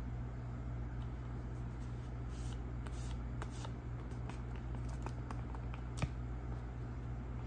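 Paper cutouts rustling and crackling as hands pick them up and handle them, with a sharp click about six seconds in, over a steady low hum.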